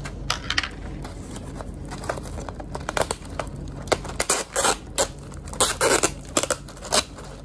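A clear plastic convenience-store ice cup being handled and its sealed lid peeled open: irregular crackling and clicking of thin plastic, with the ice shifting inside. The crackles grow denser and louder in the second half.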